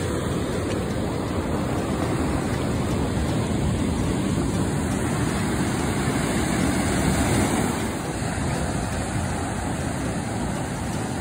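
Surf breaking and washing up the beach, a steady rushing that builds over several seconds and eases off about eight seconds in.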